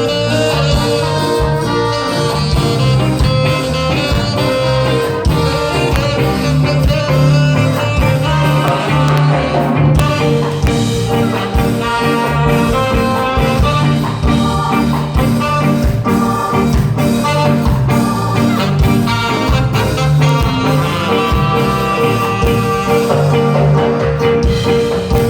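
Ska band playing live, with held tones over a steady beat.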